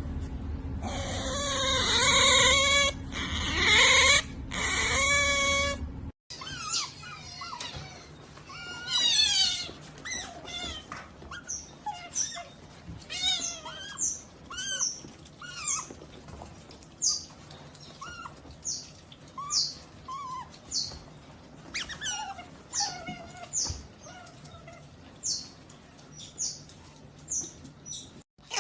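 Otters calling: loud high-pitched cries for the first few seconds, then, after a cut, a long series of short, sharp high chirps about once a second, mixed with lower chirps.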